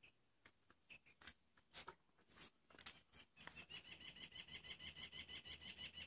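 Cats eating from a plate: faint wet clicks of chewing at first, then, about halfway through, a rapid even run of short high squeaky chirps, about six a second.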